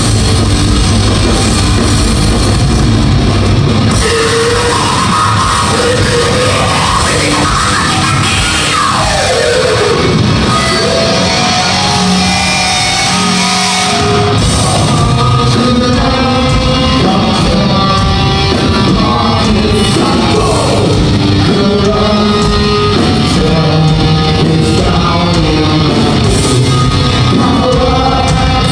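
A hardcore punk band playing loud and live: distorted guitar and bass, drums, and sung and yelled vocals, ringing in a large concert hall. The low end thins out for several seconds in the middle, then the full band comes back in.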